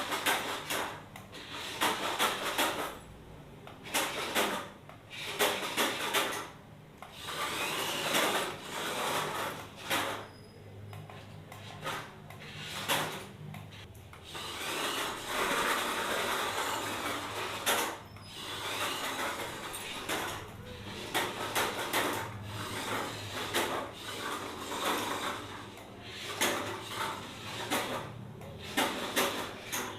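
Small electric motor of a toy RC car running in repeated bursts that start and stop, with scattered clicks and knocks as the car is driven.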